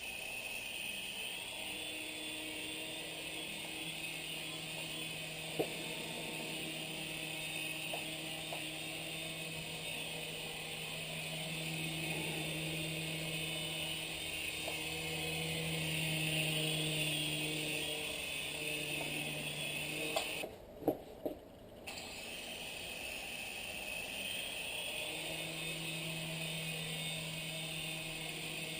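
Radio-controlled model helicopter running: a steady high whine over a lower hum that swells and eases. About two-thirds of the way through the sound briefly drops out, with a couple of sharp knocks.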